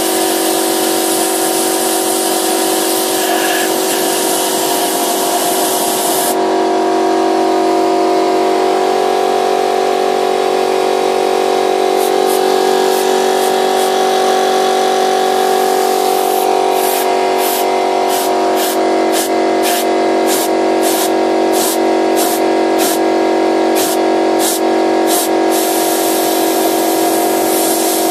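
A piston air compressor runs steadily while compressed air hisses from a blow gun into a burning intake manifold to fan the fire that burns out the carbon deposits. The air blast cuts off about six seconds in, then comes back as a rapid series of short hisses, a little under two a second, and runs steadily again near the end.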